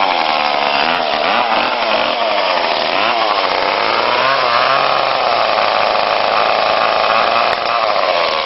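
Chainsaw running at speed, cutting in abruptly. Its engine pitch wavers up and down over the first few seconds, then holds steadier.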